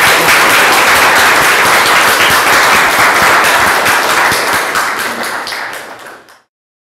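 Audience applauding, the clapping fading out and cutting to silence about six seconds in.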